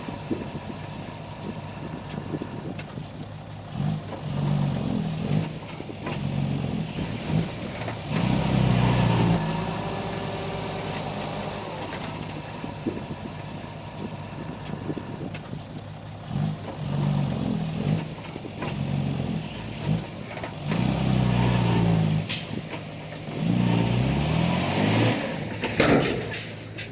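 Komatsu D31P bulldozer's diesel engine running, revving up again and again in surges a second or two long as it works under load. A quick run of sharp knocks comes near the end.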